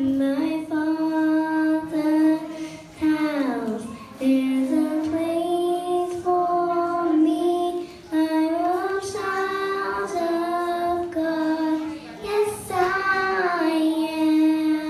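A young girl singing solo into a handheld microphone, holding long notes that slide gently between pitches, with short breaths between phrases.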